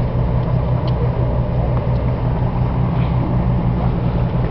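A boat's engine running with a steady low hum, heard on deck over the water.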